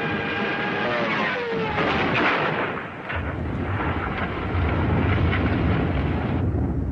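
Air-raid bombing sound effects: a pitched whine that falls in pitch like a dropping bomb, then a blast and a deep, heavy rumble of explosions, the higher part cutting off sharply near the end.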